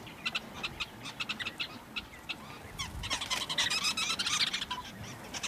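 A flock of sociable weavers chattering: many short, high chirps, growing denser and louder from about three seconds in, then easing off.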